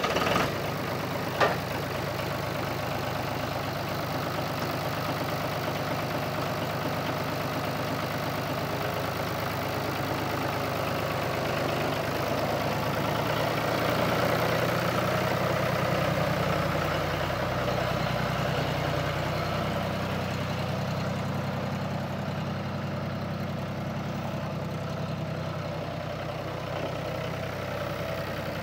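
John Deere 5300 tractor's three-cylinder diesel engine running steadily as the tractor drives across the lot, a little louder midway and easing off toward the end. A single sharp click about a second and a half in.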